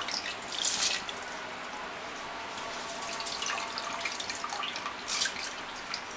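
Handfuls of soaked seeraga samba rice dropped into the mutton broth in an open pressure cooker, splashing a few times, the loudest about half a second in and again about five seconds in, over a steady hiss.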